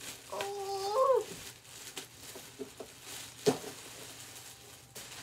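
A person's high-pitched excited squeal, held for about a second and rising at its end, followed by plastic bag rustling and one sharp thump about three and a half seconds in.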